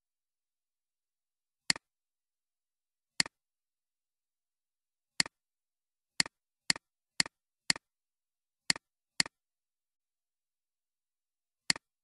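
Computer mouse button clicks, ten in all, each a sharp press followed at once by a softer release click. Singles come about two seconds in and near the end, with a quicker run of clicks about two per second in the middle.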